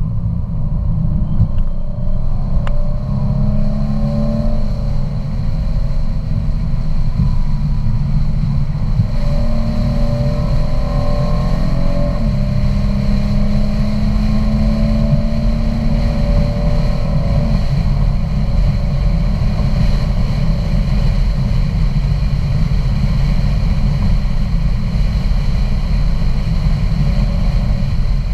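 Car engine and road rumble heard from inside the cabin of a car on a race track. The engine note climbs twice under acceleration, then holds steady for several seconds and drops away about two-thirds of the way through, leaving a steady low rumble.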